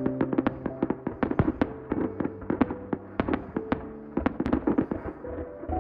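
Fireworks display going off in a rapid barrage: many sharp bangs and crackles, several a second, over steady held tones.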